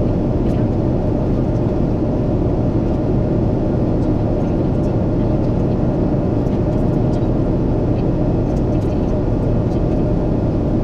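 Boeing 777-300ER aircraft noise: a steady low rumble of engines and rushing air, with a few faint clicks.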